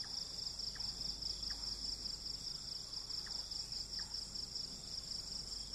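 Crickets trilling steadily in a fast, even pulse, with faint short chirps now and then.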